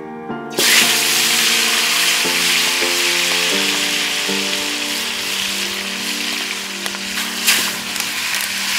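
A whole seasoned fish dropped into hot oil in a frying pan over a wood fire, setting off a loud sizzle about half a second in that carries on steadily, with a few sharper spits near the end.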